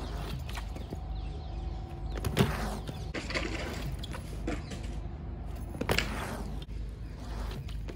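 BMX bike tyres rolling on smooth concrete, with two sharp impacts of the bike hitting the ground, one about two and a half seconds in and one just before six seconds as it lands a hop.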